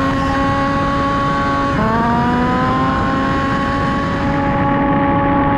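Small two-stroke petrol engine of a 1/5-scale RC racing car running at high revs. Its note climbs slowly, dips briefly about two seconds in, then climbs again.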